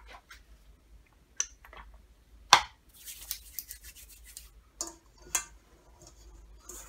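Hands handling a plastic squeeze bottle of oil, with one sharp knock about two and a half seconds in, then oiled hands rubbing together for a second or so. A few light knocks follow as the stainless steel mixing bowl is gripped and tipped on the stone counter.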